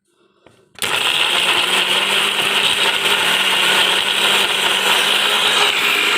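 Kitchen mixer grinder (mixie) switched on about a second in and running at steady speed, grinding rose petals, aloe vera, ice cubes and soap into a paste.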